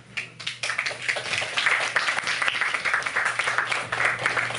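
A small audience applauding, starting suddenly and continuing as dense clapping.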